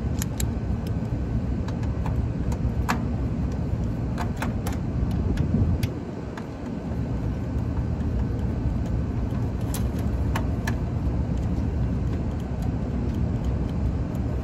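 Scattered small metallic clicks and taps from hand work on an HVAC unit's parts and wiring, over a steady low rumble that swells briefly about five seconds in and dips just after.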